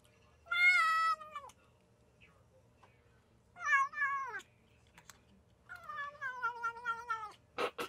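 Kitten meowing three times: a short falling meow, a second rising then falling, and a long wavering one. Two short sharp clicks follow near the end.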